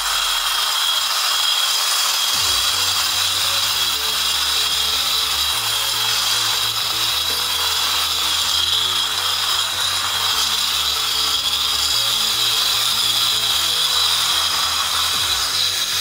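Battery-powered tabletop vacuum (Sonic Suzy desk cleaner) running and sucking up paper scraps, its small fan motor giving a loud, steady high-pitched whine. The fan is straining on a load of paper that is too large for it.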